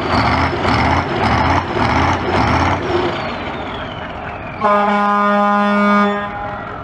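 Caterpillar 3208 V8 diesel engine of a custom trike revving in rhythmic pulses, about two a second, then easing off. About halfway through, a loud horn blast of steady pitch sounds for under two seconds.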